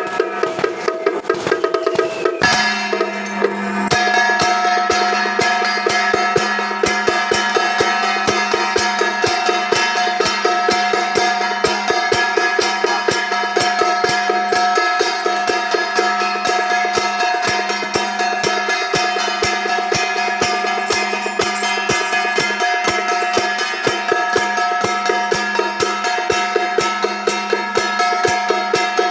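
Procession music of fast, evenly spaced percussion strikes over held pitched tones, settling into a steady pattern about two and a half seconds in.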